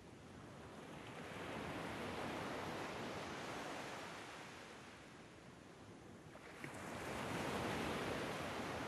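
Ocean surf washing in and drawing back: two slow swells of rushing water noise, the second building about two-thirds of the way in.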